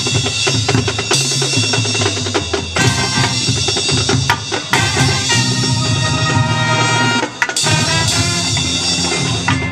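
Marching band playing loudly in full ensemble, with brass and a drumline of bass and snare drums driving the beat. The sound briefly drops out about seven and a half seconds in, then comes back in full.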